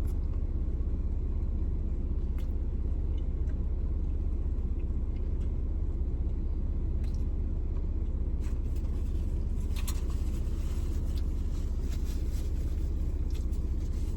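Steady low rumble like a car engine idling, with scattered light clicks and crackles, most of them about eight to thirteen seconds in, from eating a burrito and handling its wrapper.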